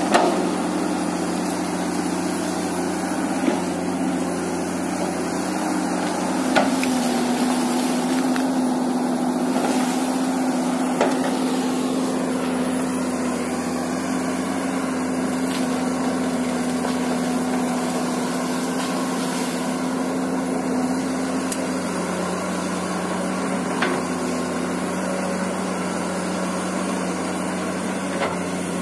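Komatsu PC200 hydraulic excavator's diesel engine and hydraulics running steadily under working load, the drone stepping up in pitch about six seconds in and dropping back a few seconds before the end. Over it come a handful of sharp cracks and knocks as the bucket breaks through branches and small trees.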